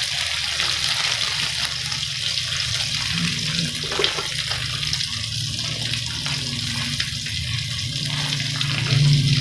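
Sliced red chillies, shallots and garlic sizzling steadily in hot oil in a wok, over a low steady hum, with a single light tap about four seconds in.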